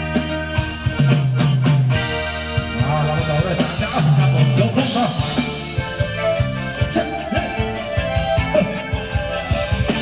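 Live band playing Thai ramwong dance music: drum kit, electric guitars and keyboard with a steady beat.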